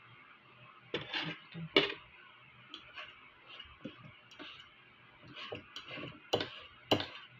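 Eating sounds at a meal: scattered sharp clicks and taps from hands working rice on plates and from chewing, about a dozen in all, the loudest near 2 seconds in and again near the end.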